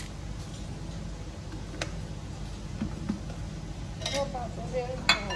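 A few light clicks of dishware handled at a kitchen bowl, ending with a sharp clink that rings on briefly, over a steady low background hum.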